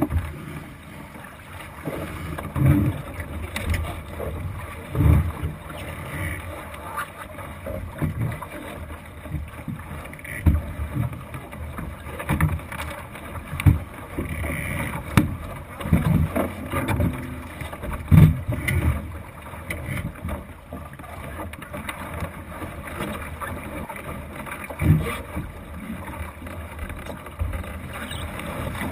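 Thistle sailing dinghy under way: a steady wash of water and wind on the microphone, with irregular low thumps and knocks through the wooden hull.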